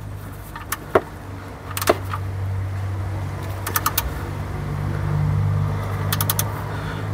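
Ratchet wrench clicking in a few short runs of quick clicks as its handle swings back between strokes, tightening a sump plug into the thread-repair insert of the oil pan. A steady low hum runs underneath.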